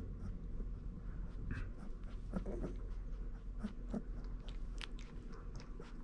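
Young Komondor puppies nuzzling and mouthing in a pile, making soft wet clicks and smacks, with a faint brief squeak about two and a half seconds in.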